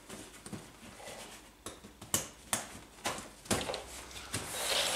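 Backpack compression straps and buckles being handled: several sharp clicks about half a second apart amid fabric rustling, then a longer rasp that grows louder near the end as webbing is pulled.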